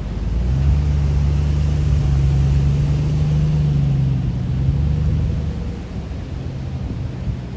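Car running along the road, a steady low engine hum and road rumble that swells about half a second in and eases off after about five seconds.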